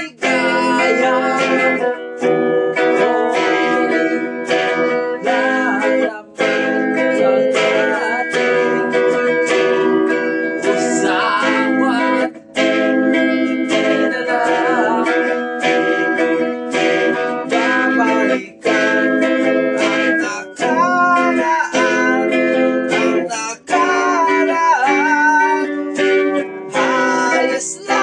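Guitar played continuously, chords and a melody with some notes bending in pitch, heard through a video call.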